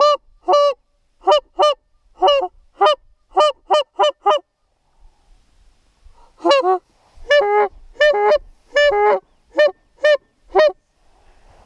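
Goose honking: a run of about ten loud, short honks, a pause of about two seconds, then another run of about ten, some coming in quick pairs.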